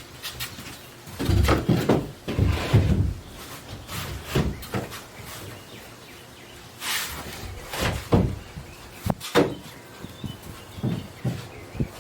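Irregular knocks, thuds and scraping of a large coosa composite panel being handled and offered up against a boat's fiberglass transom.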